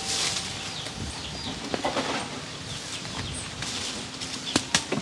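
Outdoor ambience with short, high bird chirps scattered through, and two sharp clicks near the end.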